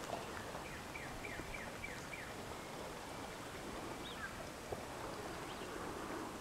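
Faint steady background hiss with a bird calling a quick run of about six short falling notes, starting just under a second in, then one more short note about four seconds in.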